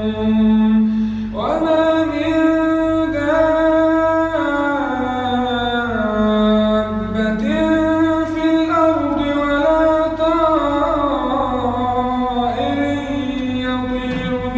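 One man's voice reciting the Quran in a slow, melodic chanting style, holding long drawn-out notes. The voice jumps up in pitch about a second and a half in, steps down around the middle, and rises again before falling near the end.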